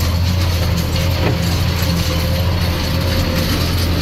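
Farm tractor's diesel engine running steadily, heard from inside the cab while working frozen ploughed ground, with the cab rattling and a faint steady whine over the engine.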